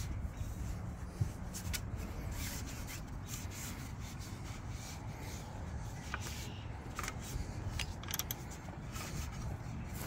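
Terry cloth rag rubbing and wiping over a bicycle's painted frame and crank guard, applying protectant in short, irregular swishing strokes over a low steady rumble.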